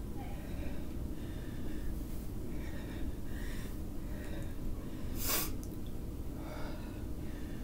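A person breathing hard through a bodyweight squat set, a run of short heavy breaths, with one much sharper, louder breath about five seconds in.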